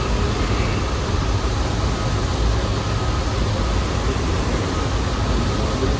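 Steady rumble and hiss of a New York City subway train at the station, with an even air-conditioning-like hum and a faint steady whine.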